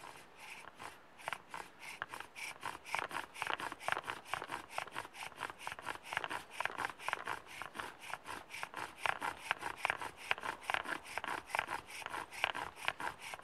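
Bow drill at work: the wooden spindle spins back and forth in the hearth board, giving a quick, even run of wood-on-wood friction strokes, about five a second, growing louder over the first second or two as the drill bites. This is the friction that heats the hearth board to build an ember.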